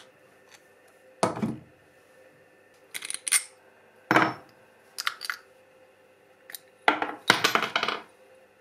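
Short metallic knocks and clatters, about ten of them spread over several seconds, as hand tools, a steel rod and a polished steel nozzle are handled and set down on a wooden workbench; the longest clatter comes near the end.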